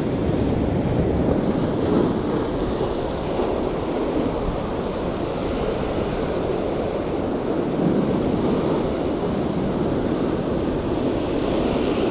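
Surf breaking and washing over a rocky shoreline in a steady rush of white water, with wind buffeting the microphone.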